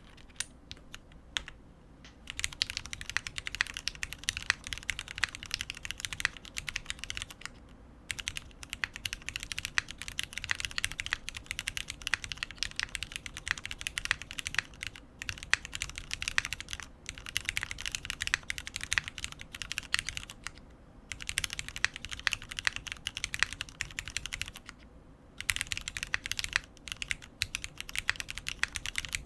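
Typing on a custom mechanical keyboard with lubed Cherry MX Black linear switches in an aluminium plate, under GMK keycaps. A few single keystrokes are followed by fast runs of typing, broken by short pauses.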